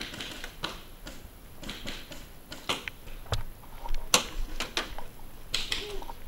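Scattered sharp pops of paintball markers firing around the field, irregular and at different distances, with one louder pop about four seconds in.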